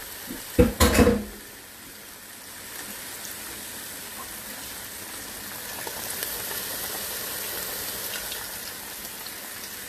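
Breaded squash slices frying in hot oil in a cast-iron wok: a steady sizzle that grows a little louder about six seconds in. Two sharp knocks come about a second in.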